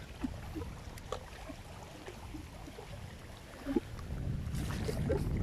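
Wind buffeting the microphone outdoors, a fluctuating low rumble, with faint short chirps and ticks scattered through it.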